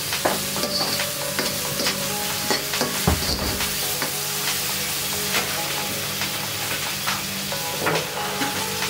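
Minced beef and sauce sizzling in a hot wok while a metal spatula stirs, scraping and clicking against the pan, with a heavier thump about three seconds in.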